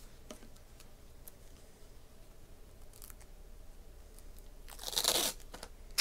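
Quiet room with a few faint clicks, then about five seconds in a brief crinkling, crackling rustle.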